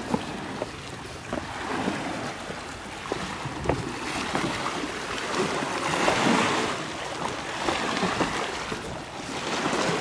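Sea surf washing in, swelling about six seconds in and again near the end, with scattered footsteps and small knocks as people walk over rock.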